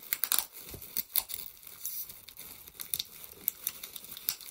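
Newspaper packing and plastic wrappers crinkling and rustling as a hand pulls wrapped snack packets out of a stuffed cardboard box, in bursts of sharp crackles, thickest in the first half-second.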